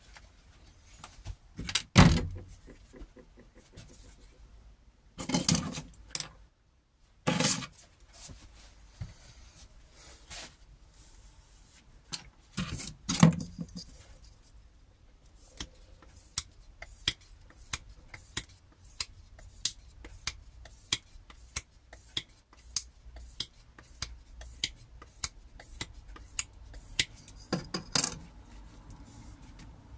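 Several loud knocks and clatter of tools being handled and set down on a bench in the first half. Then a steady series of short scrapes, about one and a half a second, as a thin blade is stroked repeatedly along a leather-and-abrasive sharpening board.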